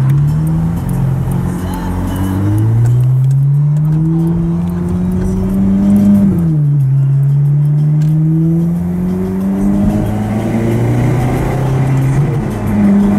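Ferrari F430's V8 with a Capristo aftermarket exhaust, heard from inside the cabin as the car accelerates: the engine note climbs steadily, drops sharply at an upshift about six seconds in, then climbs again.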